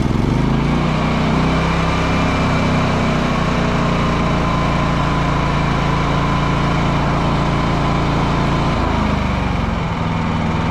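Predator 9500 inverter generator's engine running steadily just after starting, held at full speed with the eco throttle off. Its pitch shifts briefly about nine seconds in, then settles.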